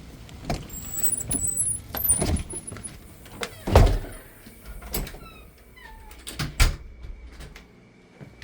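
A door and its handle being worked: about five thumps and knocks, the loudest a little under four seconds in, with short high squeaks between them.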